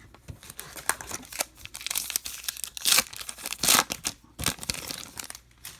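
A baseball card pack's wrapper crinkling and being torn open by hand, in a run of irregular crackles with two louder rips near the middle.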